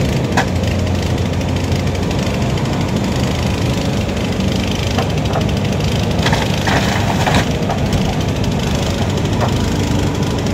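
Demolition excavator's diesel engine running steadily, with sharp knocks and cracks of breaking debris, most of them bunched together between about six and seven and a half seconds in.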